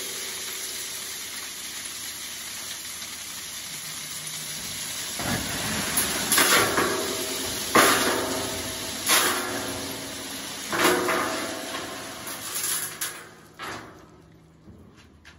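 River rock pouring out of the back of a dump truck onto a gravel drive: a steady rushing clatter that surges in about half a dozen louder, clattering pulses from about five seconds in. It dies away shortly before the end as the load runs out.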